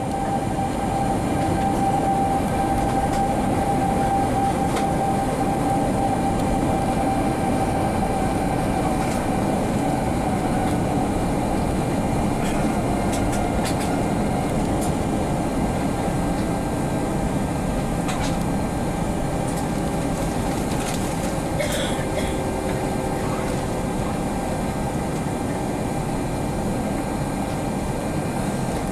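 Airbus A321 jet engines running at low power, heard from inside the cabin: a steady rumble with a steady tone that slowly fades over the first third, and a few faint clicks.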